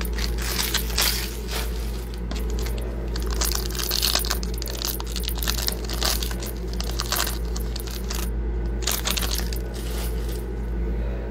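Foil wrapper of a Bowman Chrome baseball card pack being torn open and crinkled by hand, an irregular run of rustling and crinkling over a steady low hum.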